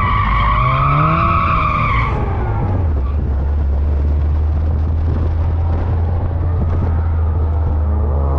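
Supercharged Mazda MX-5 engine revving while the tyres squeal through a drift for the first two seconds. The squeal then stops and the revs drop to a steady low run, and near the end the revs begin climbing again.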